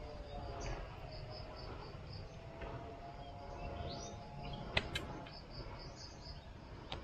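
Birds chirping in runs of short, quickly repeated high notes over a background of insects. Two sharp clicks come just before five seconds in.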